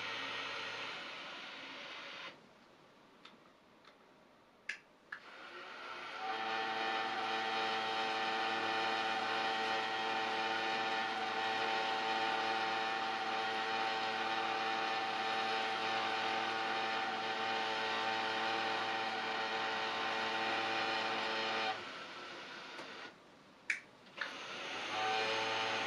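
Somfy motorised venetian blind's tubular motor raising the blind: a steady whine with several overtones that starts about six seconds in and cuts off sharply about sixteen seconds later. This is the noisy one of two identical blinds. A few sharp clicks come in the quiet gaps, and the motor starts again near the end.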